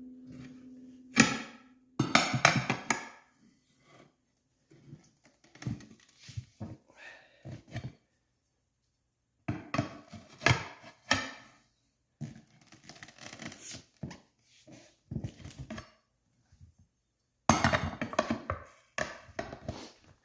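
Irregular clunks, knocks and short scrapes of a tire spoon prying a lubricated knobby tire's bead over the wheel rim, with pauses between the bouts of levering.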